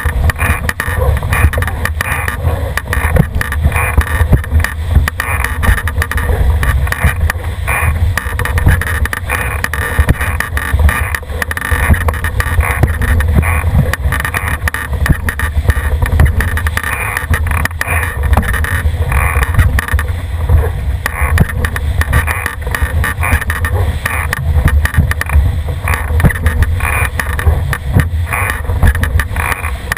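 Water rushing and splashing along the hull of a Cherub sailing dinghy running fast downwind, with heavy wind buffeting on the microphone.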